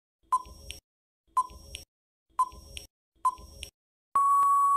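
Countdown timer sound effect: four short beeps about a second apart, then one long steady beep near the end that marks the countdown running out.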